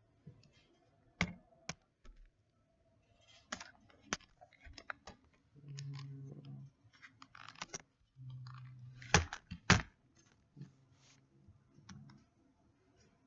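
Close-up eating of a raw apple: sharp crunching clicks scattered through, loudest as a pair about two-thirds of the way in, with two low hummed "mmm" sounds of about a second each around the middle.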